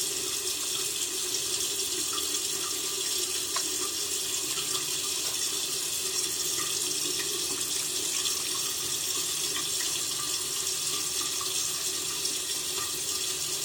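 Sink tap running steadily into the basin.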